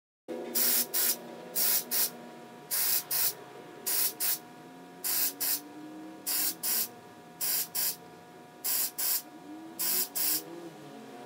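Aerosol can of CA glue accelerator spraying in short paired bursts, about one pair a second, to cure the super-glue and rosewood-dust fill on the fingerboard.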